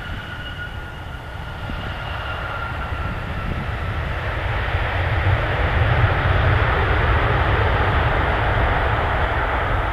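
Boeing 737-700's CFM56-7B jet engines in reverse thrust on the landing rollout: a broad jet roar with a deep rumble that builds over the first five seconds or so and then holds. A high whine fades out in the first three seconds.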